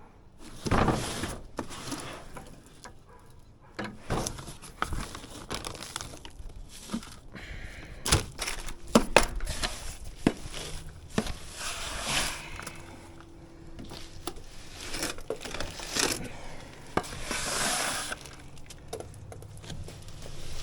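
Irregular rustling and crinkling with scattered sharp clicks and knocks, as of materials and tools being handled.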